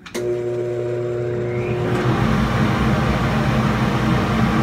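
A ventilation blower on the ductwork switching on with a click and a steady hum, then settling into a loud, steady rush and rumble of moving air from about two seconds in.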